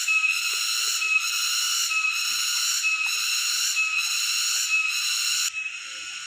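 Cicadas calling: a steady, high buzz with a slight pulse that cuts off suddenly about five and a half seconds in. A short high note repeats about once a second throughout and carries on after the buzz stops.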